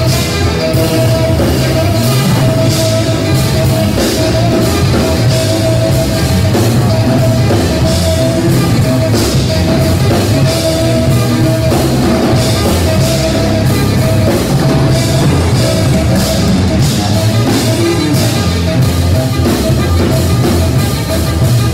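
A live trio playing loud, rock-edged jazz: a drum kit and an electric guitar, with a mid-pitched held note returning again and again over the drumming.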